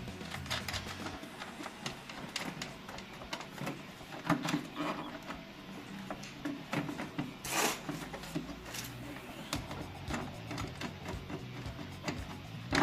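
Irregular plastic clicks and knocks as the car's air filter box cover is handled and lifted off and the old air filter removed, over background music.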